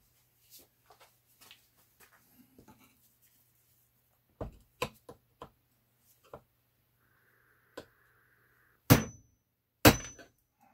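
Hammer striking a chisel to split the halves of a 1972 Bolens Husky 1256 snowblower gearbox, held together by gasket sealant: a few light taps, then two hard blows about a second apart near the end, each with a short metallic ring.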